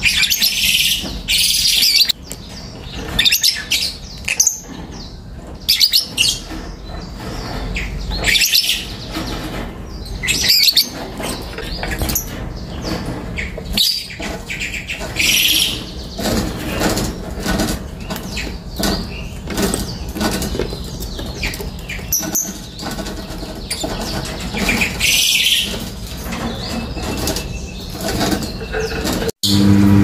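Caged lovebirds calling with repeated shrill, high-pitched chirps, a burst every second or two.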